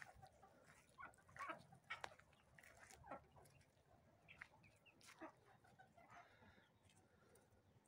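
Chickens clucking faintly, a few short calls now and then.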